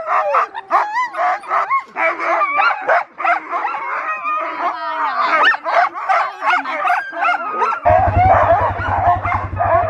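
Harnessed husky sled dogs barking, yipping and howling excitedly in a chorus of overlapping calls, eager to run. About eight seconds in, a quad bike's engine starts running with a low, fast-pulsing rumble under the dogs.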